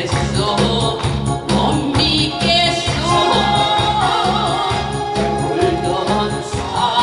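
A woman singing a Korean trot song into a microphone over amplified accompaniment with a steady pulsing beat.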